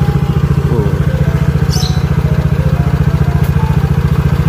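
Small single-cylinder four-stroke scooter engine idling steadily, with an even, rapid pulse of firing strokes.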